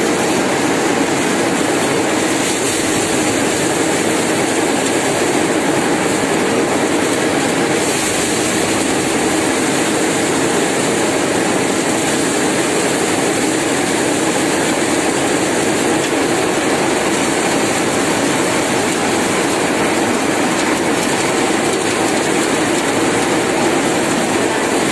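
Tractor-driven paddy thresher running steadily while paddy straw is fed into its hopper and threshed.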